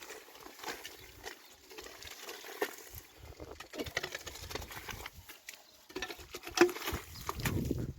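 Livestock, most likely the family's sheep, moving about: irregular scuffs, taps and patter. There is a louder knock about six and a half seconds in.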